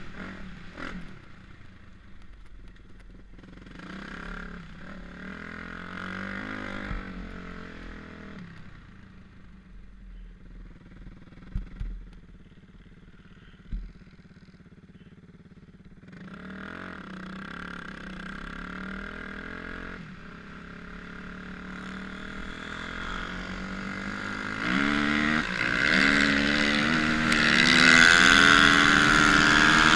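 Dirt bike engines running and revving up and down with the throttle. The engine sound drops lower in the middle, where two sharp knocks are heard, then grows louder toward the end as a second bike comes close.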